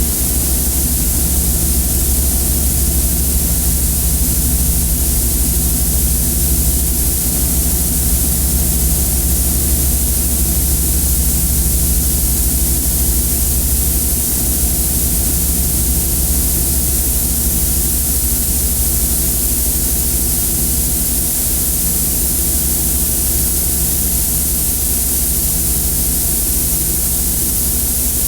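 Experimental noise music: a steady, loud wall of hiss over a low droning hum made of several steady tones, unchanging throughout.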